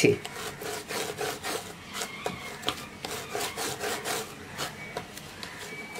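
Hands rolling and pressing a ball of soft cooked rice-flour dough on a bamboo cutting board: a run of soft rubbing and patting strokes against the wood.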